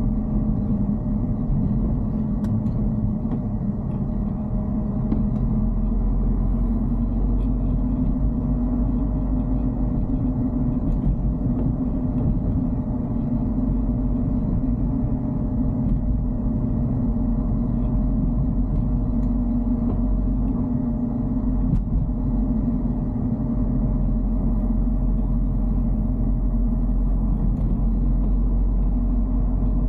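Steady engine and road rumble inside the cabin of a moving Dacia Duster, with a faint steady hum above it.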